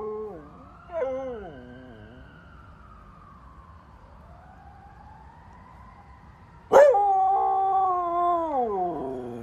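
Siberian husky howling: two short howls falling in pitch near the start, then a loud, long howl about two-thirds of the way through that holds its pitch and slides down at the end.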